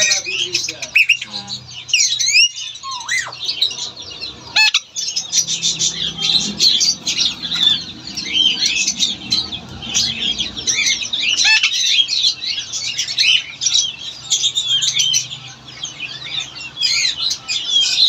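Caged Alexandrine parakeets and other birds squawking and chirping without a break, many calls overlapping, with a few louder harsh squawks in the first few seconds.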